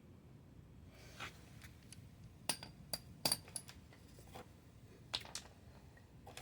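A string of sharp metallic clinks and taps, about eight in all and irregularly spaced, a few with a short bright ring, as metal brake parts and tools are handled.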